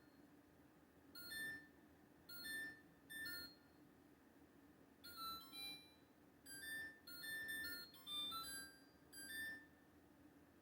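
LG LFX25960ST refrigerator's control panel beeping on its own: about eight short electronic chimes of a few notes each, at irregular intervals. This is the fault in which the fridge's lights keep flashing and beeping.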